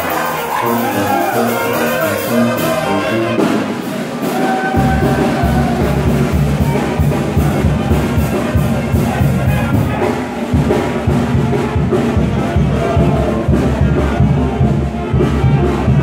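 Loud dance music with brass horns; a heavy bass and drum beat comes in about five seconds in.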